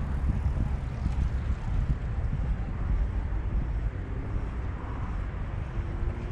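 Wind buffeting the microphone: a steady, low, fluttering rumble.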